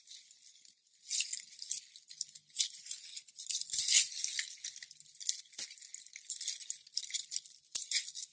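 Slime being squeezed and worked by hand, giving irregular crisp crackling and popping with sharp little clicks, loudest about four seconds in.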